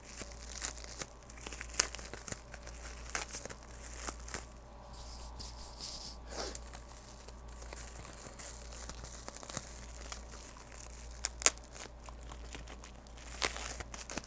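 Plastic bubble wrap being handled, crinkling with scattered sharp pops, one louder pop late on.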